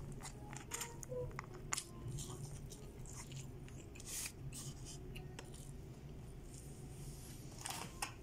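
Eating by hand from an aluminium foil takeaway tray: scattered sharp crinkles and clicks as fingers pick through the chicken and rice against the foil, with chewing, over a low steady hum.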